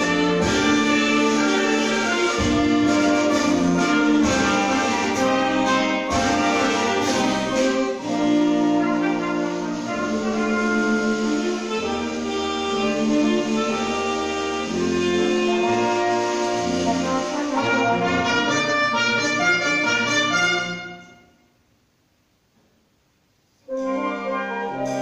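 Wind band playing a suite, brass and woodwinds together in full, sustained chords. About 20 seconds in the music dies away to near silence for about two seconds, then the band starts again.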